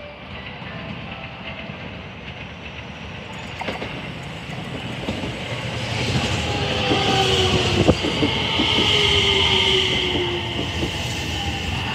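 JR West 227 series electric train approaching and running past close by, growing louder, its motor whine gliding down in pitch as it slows. Wheels rumble on the rails, with a sharp clack about eight seconds in.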